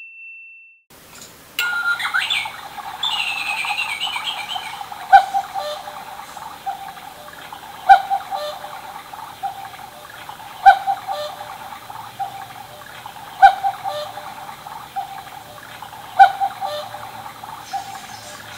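Battery-powered quartz mini cuckoo clock sounding the hour with its electronic cuckoo call. It gives five falling two-note "cuck-oo" calls about every three seconds over a recorded background of birdsong and running water.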